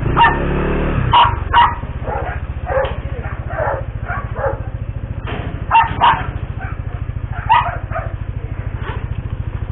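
A dog barking repeatedly in short, irregular barks, over a motorcycle engine idling steadily.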